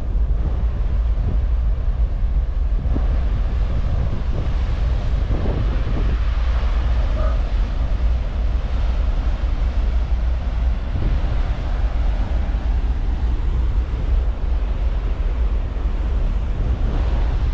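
Wind buffeting the microphone on the open deck of a ferry under way, over a steady low rumble and the rushing of the churning wake below.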